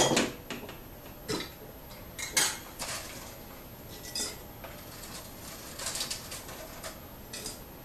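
Glass mason jar and its metal lid handled on a table: a sharp clink as the jar is set down, two more sharp clicks soon after, then fainter taps and rustles as dried tomato slices are picked off a plastic food dehydrator tray and dropped into the jar.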